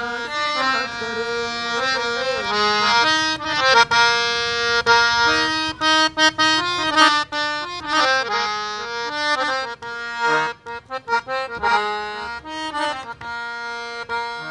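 Indian hand-pumped reed harmonium playing a solo melodic passage, held notes giving way in the middle to a quick run of short, detached notes.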